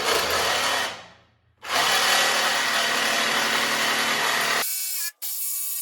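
Power tool cutting through a steel subframe bar: it runs about a second, dies away, then cuts again steadily, and near the end its sound changes, with a brief stop.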